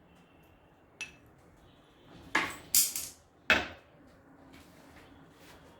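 Kitchenware clattering: a light click about a second in, then three loud clanks in quick succession around the middle, each with a short ring.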